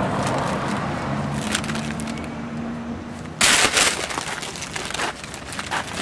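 Brown paper bag crinkling and rustling as it is handled and opened, with a loud burst of crinkling about three and a half seconds in and sharp crackles after it.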